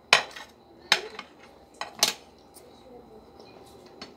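Metal spoons and forks clinking against ceramic dinner plates during a meal: about four sharp clinks in the first two seconds, then quieter.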